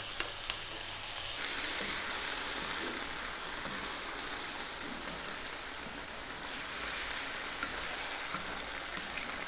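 Tomato sauce with tuna and broccoli sizzling steadily in a frying pan over medium heat as it is stirred with a wooden spoon, with a few light clicks of the spoon near the start.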